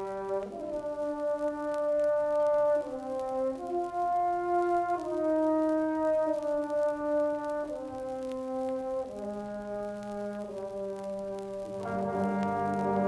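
High school band recording from a 1965 LP, brass to the fore, playing slow held chords that change every second or two. The full band comes in louder near the end.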